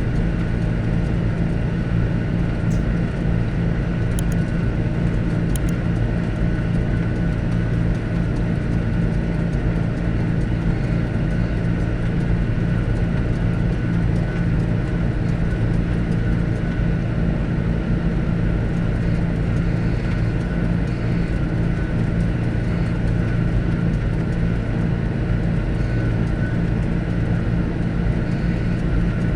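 John Deere 8410 tractor's diesel engine running steadily at a constant speed, a deep even drone with no change in pitch.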